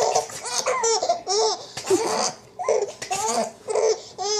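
Baby laughing in repeated high-pitched bursts, with short breathy gasps between them.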